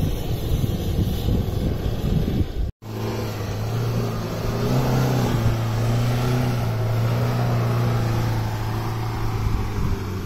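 An SUV engine labouring up a sand dune, with wind buffeting the microphone. About three seconds in, the sound cuts to a Ford Endeavour's engine held at steady high revs as it climbs through soft sand, its pitch rising a little, then easing and fading near the end.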